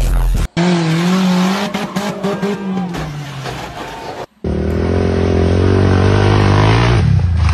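Off-road vehicle engines heard across quick cuts. First an engine runs with a wavering pitch. Then, after a short break about four seconds in, a quad bike engine revs with a slowly rising pitch.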